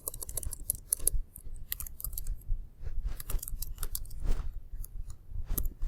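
Irregular light clicking and tapping, many quick clicks at uneven spacing, over a low steady hum.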